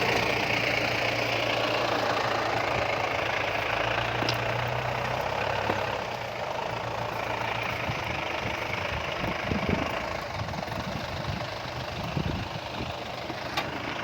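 Toyota Dyna truck diesel engine in a Daihatsu Taft 4x4 running at a steady low speed. About six seconds in it drops to a quieter note, with scattered low thumps after that.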